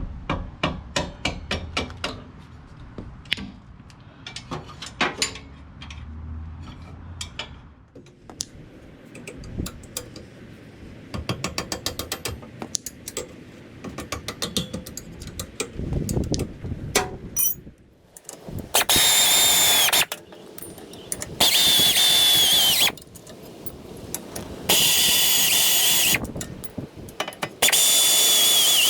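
Rapid metallic ratcheting clicks and taps as the rear hub bolts are worked loose. About two-thirds of the way in, a 3/8-inch air ratchet with a 12mm socket runs in four loud bursts of a second or so, each with a high whine, spinning out the four bolts that hold the hub bearing assembly to the axle.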